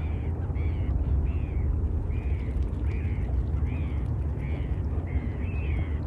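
A flock of waterbirds calling over and over: short calls that rise and fall, about two a second, over a steady low rumble.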